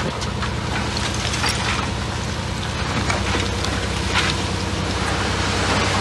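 Komatsu D41P bulldozer's diesel engine running steadily, with irregular crackles and clicks over the top.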